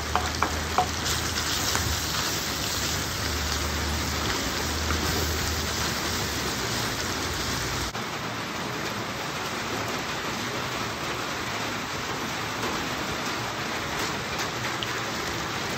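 Heavy rain pouring down steadily, a dense even hiss. A low rumble underneath stops about halfway through.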